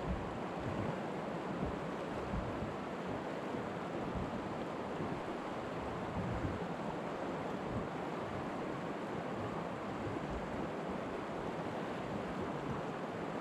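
Shallow river rapids rushing steadily over a rocky riffle, a constant even hiss of moving water.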